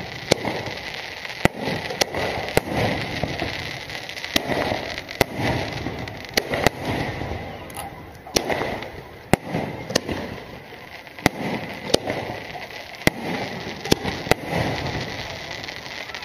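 Aerial firework shells bursting overhead: a string of sharp bangs, roughly one a second at irregular intervals, with a rolling rumble between them.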